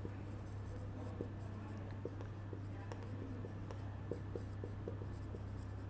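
Marker pen writing on a whiteboard: faint short scratching strokes, over a steady low electrical hum.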